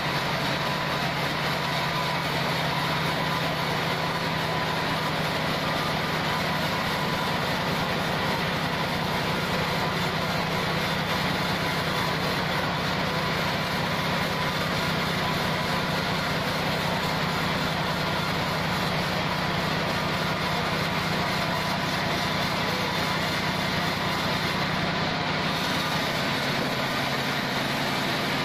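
Engine-driven band sawmill running steadily, a continuous loud machine hum with no breaks.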